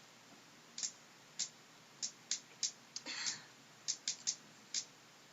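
About ten faint, sharp clicks at uneven intervals, with a short breathy hiss about three seconds in.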